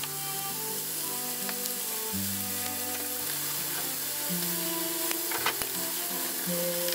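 Chicken breast pieces sizzling steadily in a frying pan, under background music with held notes. A few light clicks about five seconds in as chopsticks stir a sauce in a glass bowl.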